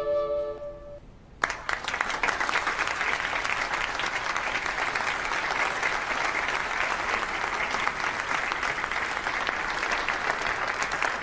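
The tango music's last held notes stop, and about a second and a half in a crowd breaks into applause, steady and dense clapping that continues.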